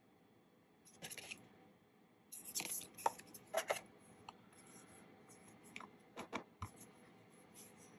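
Paper and card being handled: a booklet closed and a thin card sleeve slid and turned in the hands, giving faint rustling and scraping with a few soft ticks, busiest from about two to four seconds in.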